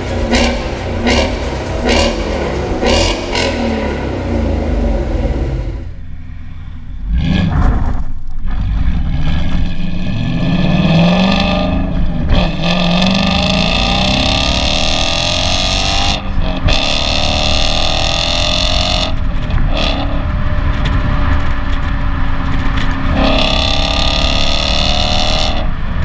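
Ford Mustang GT 5.0 V8 running through a Milltek non-resonated cat-back exhaust. In the first few seconds there are short sharp bursts about once a second. After that the car accelerates hard, the pitch climbing and then breaking off at each of several gear changes.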